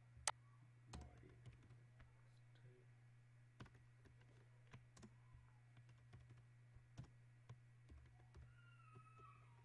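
Faint, irregular computer keyboard keystrokes and clicks, one sharper click shortly after the start, over a steady low hum.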